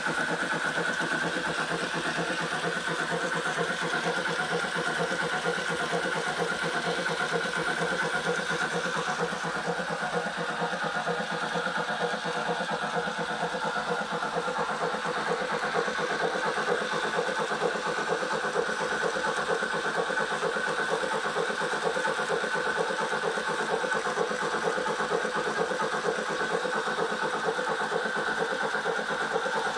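Garden-railway model steam locomotive running steadily on a roller test stand, its motor, gearing and spinning wheels making a continuous mechanical whir.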